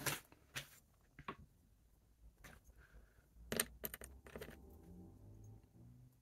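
Plastic Lego bricks being handled and pressed together on a tabletop: scattered sharp clicks and small clatters, the loudest about three and a half seconds in.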